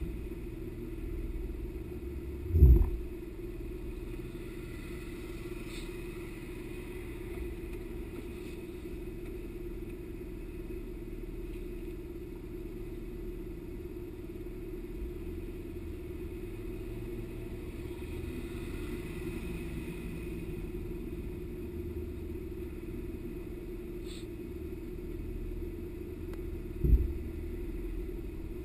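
Off-road 4x4's engine running steadily, with a constant low rumble. Two loud low thumps break through, one about three seconds in and one near the end.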